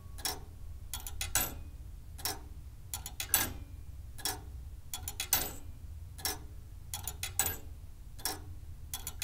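Mechanical pendulum wall clock, the Perpetual No.1 perpetual-calendar clock, ticking steadily about once a second, every other tick louder.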